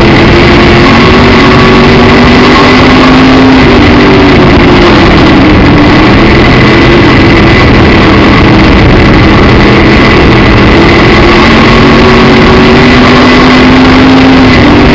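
Midwest Modified dirt-track race car's V8 engine heard from inside the car, very loud and near the limit of the recording. Its pitch climbs for a few seconds, falls back about four seconds in, then climbs again and falls back near the end.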